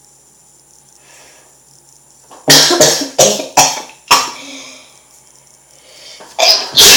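A young man coughing in a quick run of about five harsh bursts. After a short pause he sneezes loudly near the end, with a sharp intake just before it.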